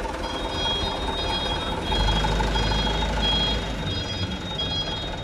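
Electronic beeping, a high tone repeating at an even pace in short beeps, over a low rumble that grows louder about two seconds in.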